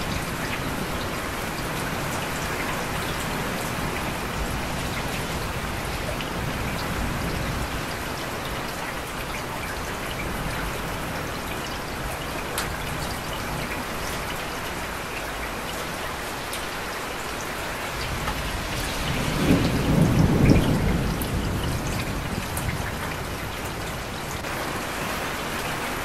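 Steady rain falling, with a low rumble of thunder swelling and fading about twenty seconds in.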